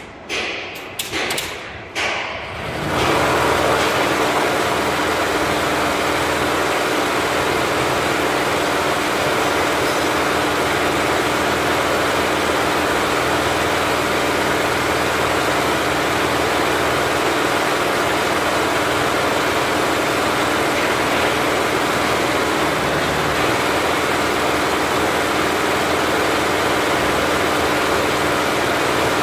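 Multi-head flat embroidery machine: a few separate clunks, then about three seconds in all the heads start stitching together and the machine runs on steadily with a dense, even mechanical rattle.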